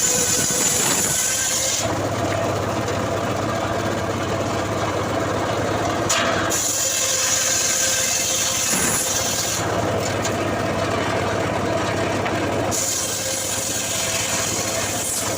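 Engine of a wood-cutting saw running steadily, with a high hiss that drops out about two seconds in, returns around six seconds, drops out again near ten seconds and comes back near thirteen.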